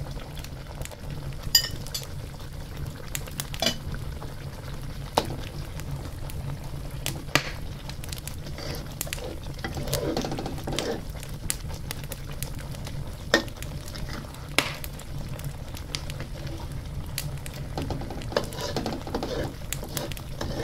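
Thick curry simmering in a wok, bubbling with scattered sharp pops, over a steady low hum.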